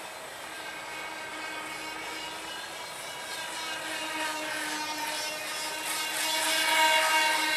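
Motor of a small radio-controlled model of an Avro Vulcan delta-wing bomber, whining steadily in flight, its pitch shifting up and down with the throttle and the turns. It grows loudest near the end as the model passes close.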